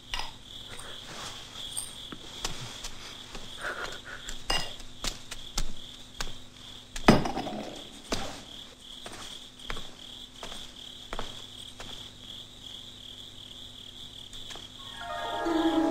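Crickets chirring steadily as night ambience, with scattered soft knocks and one louder knock about seven seconds in. Music begins near the end.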